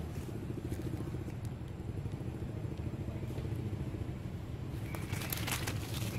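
A steady low rumble throughout. From a little before the end, dry leaf litter rustles and crackles as macaques run across the forest floor.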